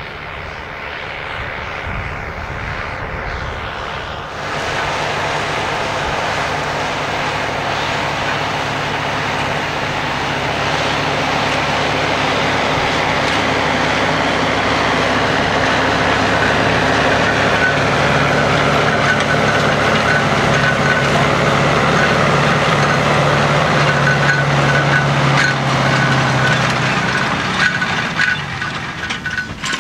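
Fendt Farmer 309 C tractor's four-cylinder diesel engine running under load as it pulls a cultivator through stubble, with clatter from the cultivator. It grows louder as the tractor passes close by and falls away near the end.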